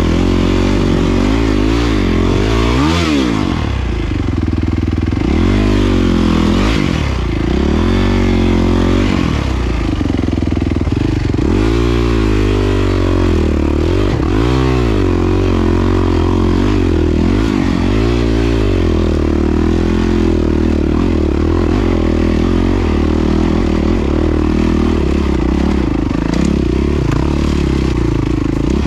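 Yamaha WR450F's single-cylinder four-stroke engine, its revs rising and falling again and again as the throttle is worked, then running at a steadier pitch over the last several seconds.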